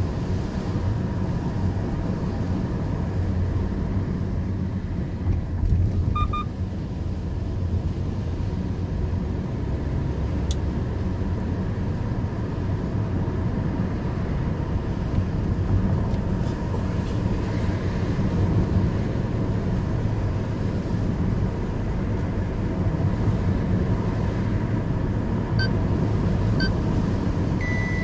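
Steady low rumble of a car's engine and tyres on wet asphalt, heard from inside the cabin while driving.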